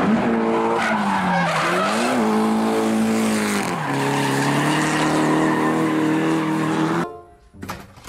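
Drift car's engine revving up and down as the car slides sideways through a corner, with the tyres squealing in a long, smoky skid. The sound cuts off sharply about seven seconds in.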